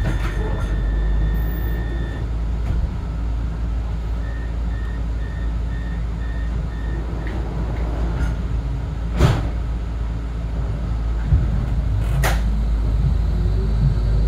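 Inside a Melbourne E-class tram stopped at a stop: the tram's equipment hums steadily while a beep sounds for about two seconds, then a run of about six short beeps follows, typical of the tram's door-warning signal. Two sharp knocks come a few seconds apart, and near the end a rising whine begins as the tram starts to pull away.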